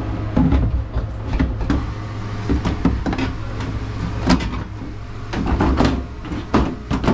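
Irregular knocks and clatter, like tools and parts being handled, over a steady low hum.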